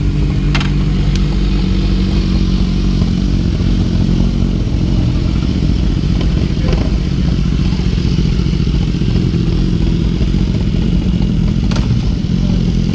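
Sport motorcycle engines idling steadily, with a few light clicks about half a second in, about a second in and near the end.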